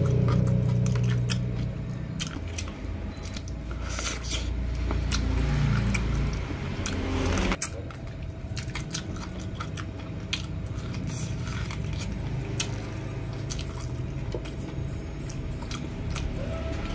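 Close-miked biting and chewing of stewed pork trotter, with many short wet mouth clicks, over a faint steady hum.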